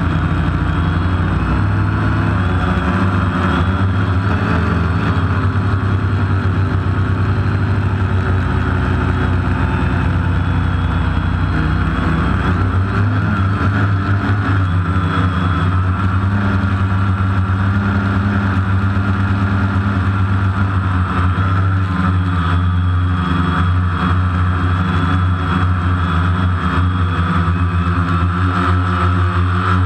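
Multicopter drone's electric motors and propellers whirring in flight: a steady multi-tone hum whose pitch wavers slightly now and then.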